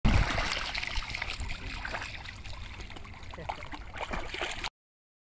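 Running or splashing water with wind rumbling on the microphone, which cuts off suddenly near the end.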